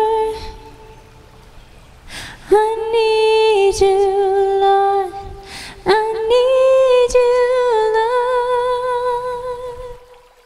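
A woman's solo voice singing wordless, humming-like held notes in three long phrases, the last note fading out near the end.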